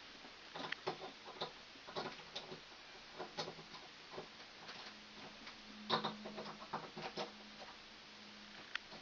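Irregular small clicks and taps of hand work on a wall switch and its metal electrical box, a cluster near the middle louder than the rest, with a faint steady hum joining about halfway through.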